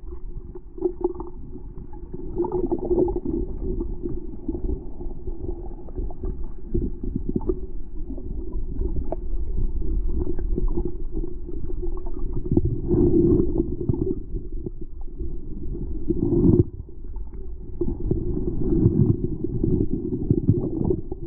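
Muffled underwater rumble and churning water, heard through a submerged camera's housing, with many scattered clicks and knocks and several louder surges.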